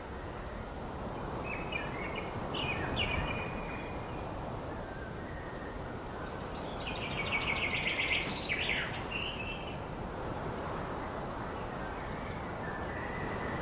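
Birds chirping over a steady outdoor hiss: a few short falling chirps about two seconds in, then a rapid trill and a falling call about halfway through.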